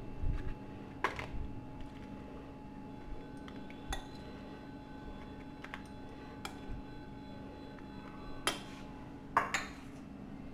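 Spoon scooping chickpea chaat out of a glass bowl into a foil serving bowl: scattered clinks and scrapes against the bowls, the loudest two a little before the end. A steady low hum runs underneath.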